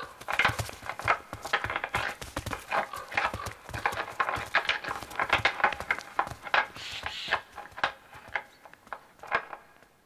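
Antlers of two young wild forest reindeer bulls clacking and rattling together as they spar in the rut, an irregular run of sharp knocks coming thick and fast and trailing off near the end.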